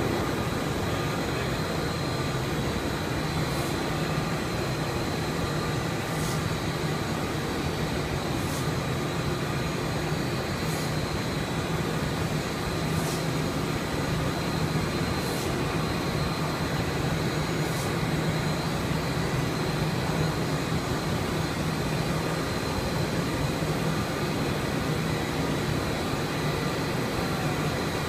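HAS Group Ram X2 textile fabric-processing machine running: a steady mechanical hum with a constant high whine. A short high hiss repeats about every two and a half seconds through the first two-thirds.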